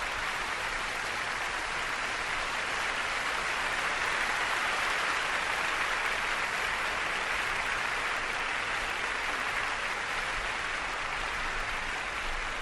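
Audience applauding steadily. The applause swells over the first few seconds and eases off toward the end.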